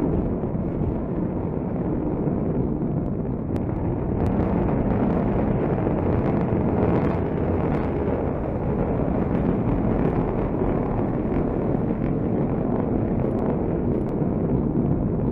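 Steady low rumble of a Trident II D5 missile's solid-fuel rocket motor in climbing flight.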